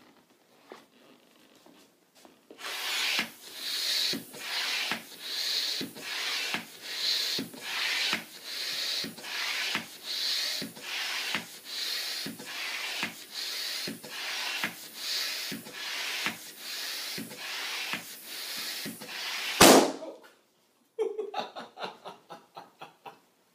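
A balloon pump worked in a steady rhythm of hissing strokes, forcing air into a balloon until it bursts with one loud pop near the end. A short run of quick clicks follows the pop.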